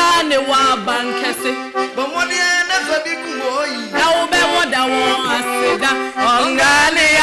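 Piano accordion playing a tune over held chords.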